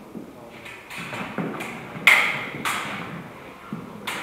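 Steel rapier blades clashing and scraping as two fencers exchange, mixed with stamping footwork on a hard floor: a handful of sharp, irregular strikes, the loudest about two seconds in with a brief ring.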